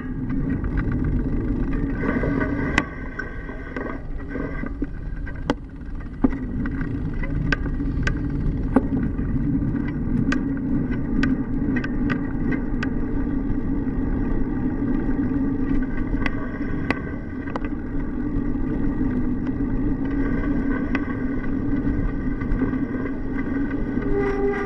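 Riding noise picked up by a camera mounted on a moving bicycle: a steady rumble of tyres and wind, with scattered sharp clicks and knocks as the bike and mount jolt over the road surface.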